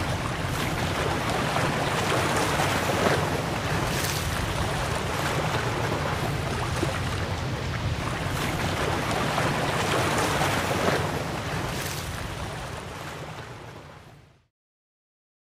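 Ocean surf washing on a rocky shore: a steady rush of water that swells and ebbs every few seconds, fading out near the end.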